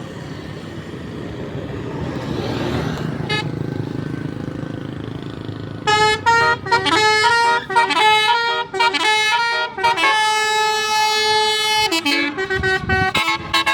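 Bus engine rumbling for the first six seconds or so, then a Basuri 'telolet' musical horn plays a tune: quick short notes, one long held chord in the middle, then more quick notes.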